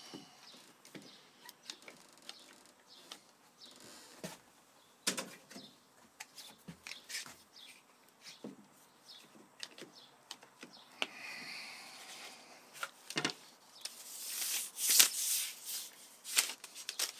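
IRWIN one-handed bar clamps being worked onto a glued-up wooden block: scattered clicks and knocks of the clamp triggers, bars and jaws, with a louder scraping rustle near the end.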